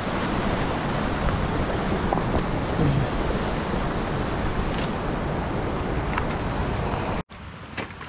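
Mountain stream rushing over rocks: a steady wash of water. Just past seven seconds it cuts off abruptly to a much quieter background with a few light footsteps.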